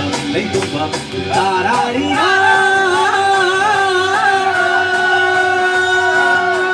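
A song with a singer and backing instruments, played loud. From about two seconds in the singer holds one long, slightly wavering note.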